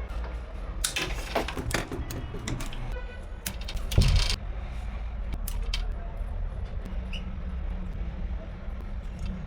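Scattered small clicks and rattles of hard objects being handled, with one louder knock about four seconds in, over a steady low rumble.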